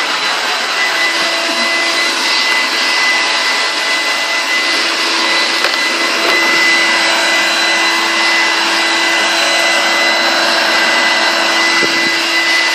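Vacuum cleaner running steadily while being worked over carpet: a rush of air with a steady high motor whine, and a lower hum joining about a second in.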